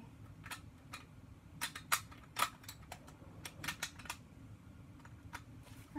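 LEGO Technic plastic parts clicking and clattering irregularly as pieces are handled and pressed onto the truck chassis, about a dozen sharp clicks in all.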